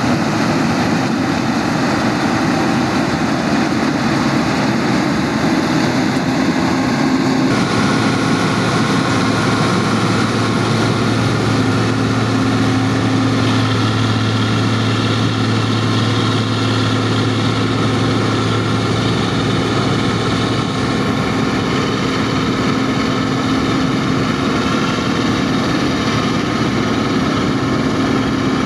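New Holland 8070 combine harvester running under load while harvesting: a steady diesel engine and threshing drone with a constant hum. Its tone changes about seven seconds in, and the level stays even.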